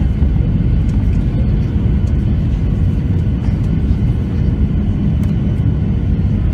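Steady engine and airflow rumble inside the cabin of a Boeing 737-700 on short final, with its CFM56-7 turbofans heard from a seat over the wing.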